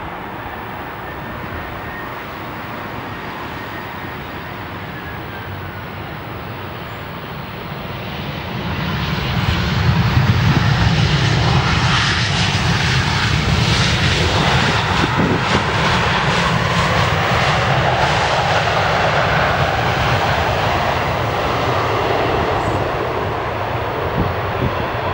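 Airbus A320-214's CFM56-5B jet engines during landing and rollout. A steady rumble with a faint whine grows much louder about eight seconds in as the airliner rolls past on the runway, then eases a little near the end.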